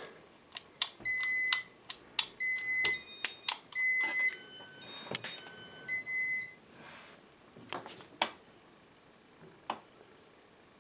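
Button clicks on an early Casablanca ceiling fan control, answered by short electronic beeps: four beeps of the same pitch, with a run of beeps at changing pitches in between, then a few more clicks near the end.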